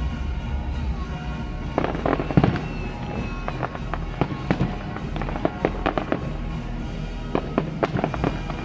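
Aerial fireworks bursting overhead: a run of sharp bangs and pops, thickest about two seconds in and again near the end, with music playing underneath.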